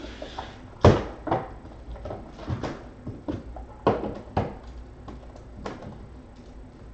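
Irregular knocks and clunks of things being handled, about seven in all, the loudest about a second in.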